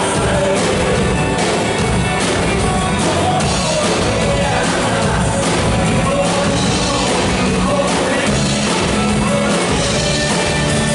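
Rock band playing live: electric guitar and drum kit, with a man singing, loud and steady.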